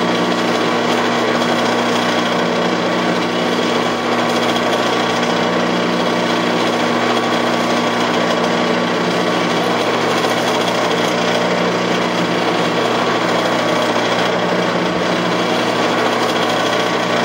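Metal lathe running steadily with no cut being made: an even machine hum with steady low tones.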